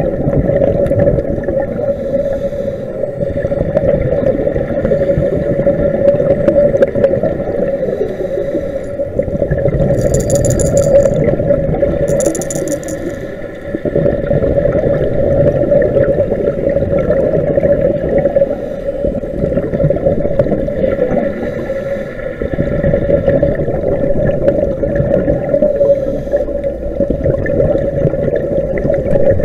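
Underwater noise picked up by a dive camera in its housing: a steady drone over a rumbling, rushing wash of water sound, with two short hissing bursts about ten and twelve seconds in.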